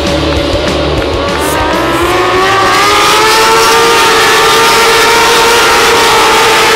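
A pack of racing motorcycles at full throttle, several engine notes rising together as they accelerate, growing louder after about two seconds. Rock music with a heavy beat fades out in the first two seconds.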